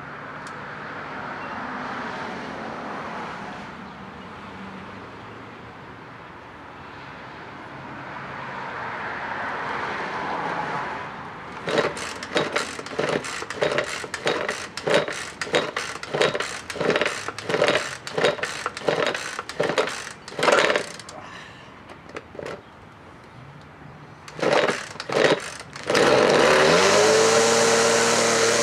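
A 33cc two-stroke string trimmer (weed whacker) being pull-started: a run of sharp strokes about twice a second as it is cranked, then about three seconds from the end the engine catches and runs with a rising pitch as it revs up.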